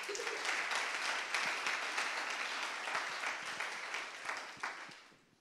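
Audience applauding: many hands clapping in a steady patter that dies away near the end.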